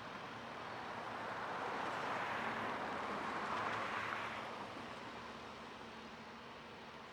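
A vehicle passing on a road: a rushing noise that swells over a few seconds, peaks in the middle and fades away, over a faint steady low hum.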